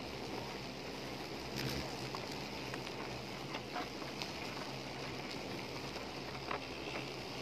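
Steady low buzzing drone of a swarm of June beetles (salagubang) flying, with a few light ticks and taps scattered through it.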